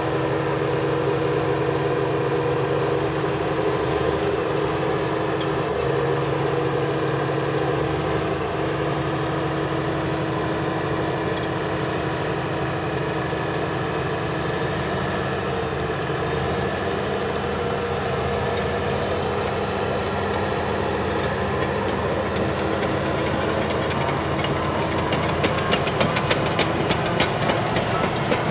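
Caterpillar crawler dozer's diesel engine running steadily as the machine crawls slowly over the top of a sand pile and down the far side. Its steel tracks clatter rapidly near the end as it rolls onto flat ground.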